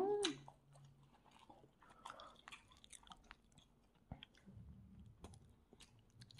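A person chewing food close to the microphone, with many small wet mouth clicks and smacks. A short hummed "mm" sounds right at the start.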